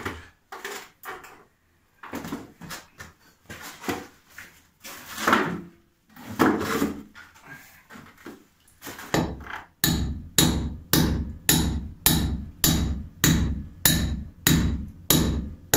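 Hammer blows driving short steel rebar pins into holes drilled in a wall. Scattered knocks come first, then a steady run of about two blows a second through the second half.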